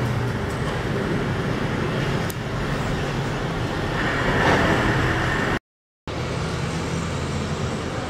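Steady traffic noise that swells around four to five seconds in, broken by a sudden half-second dropout to silence just before six seconds in.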